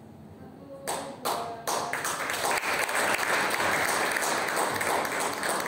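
Audience applause: a few scattered claps about a second in, building into steady clapping from about two seconds in.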